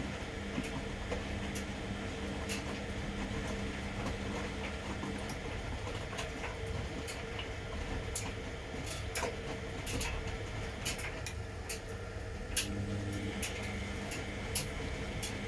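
Washing machine running a wash cycle: the drum motor hums, stops about five seconds in and starts again near the end, as in the tumbling rhythm of the wash, with scattered clicks and knocks from the turning drum and load.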